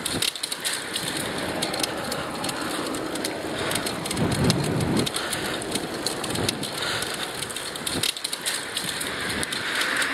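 Wind buffeting an earpiece microphone during a bike ride, a steady rushing noise broken by many small crackles.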